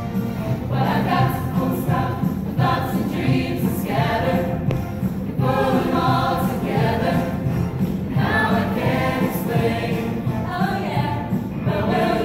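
A choir singing a song in phrases, over steady accompaniment.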